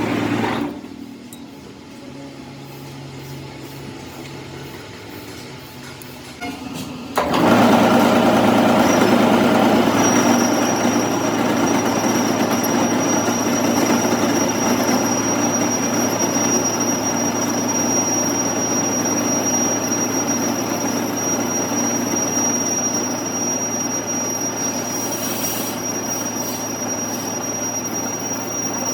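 A metalworking machine running steadily, quieter at first and much louder from about seven seconds in, with a thin, steady high whine joining about three seconds later.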